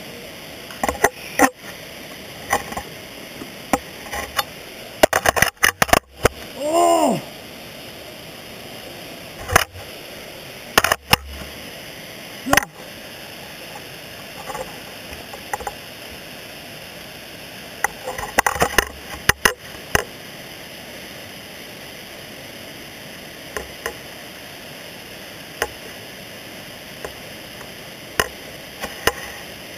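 Ice-axe picks knocking and scraping on rock during dry tooling, with metal clinks of the gear, in irregular sharp clicks that come in clusters. A short vocal cry about seven seconds in.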